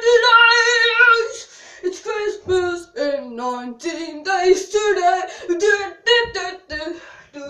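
A boy singing a made-up song unaccompanied, opening with a long held note and then going on in short sung phrases.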